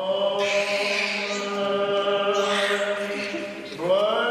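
Chanted singing: voices holding long, steady notes over a low drone, with a new phrase sliding up in pitch near the end.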